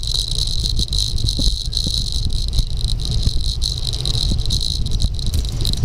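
Wind rushing over the microphone of a handlebar-mounted SJ1000 action camera on a road bike going downhill, with the homemade camera mount rattling over the road surface. A steady high-pitched hum runs underneath.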